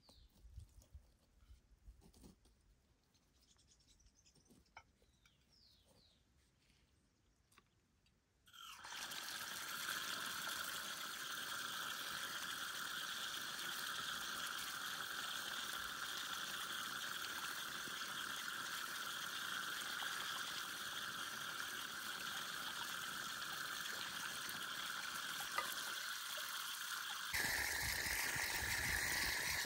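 Running water, a steady rush that starts suddenly about eight seconds in after a quiet stretch with faint chirps and clicks. The rush changes tone and gets a little louder near the end.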